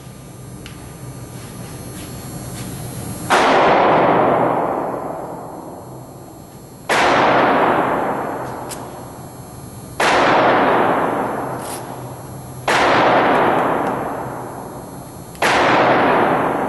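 Five gunshots, about three seconds apart, each followed by a long echo that dies away over a couple of seconds in a hard-walled indoor range.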